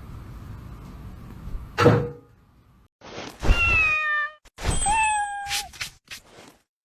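A thump, then a domestic cat meowing twice: a short call falling in pitch, then a longer, level one.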